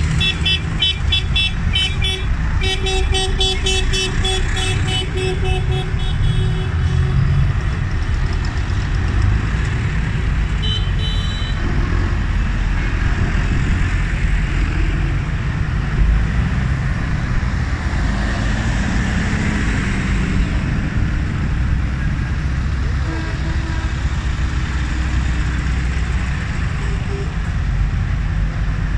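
Large tractors' diesel engines running steadily as they drive past one after another. A horn sounds in a quick string of short toots, about four a second, over the first several seconds, and once more briefly about eleven seconds in.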